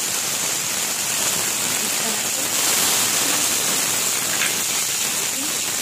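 Pomfret pieces shallow-frying in hot oil in a pan: a steady, loud sizzle.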